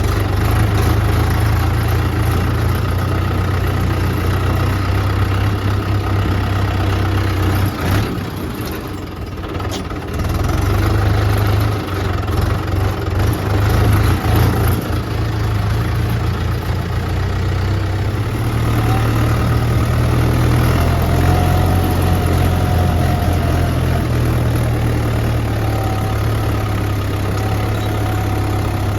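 Heavy diesel machinery engines of a backhoe loader and tractor running steadily at low revs, with a brief easing around eight to ten seconds in.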